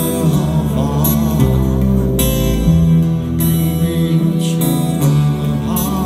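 Live band playing with strummed guitars and a male singer's voice.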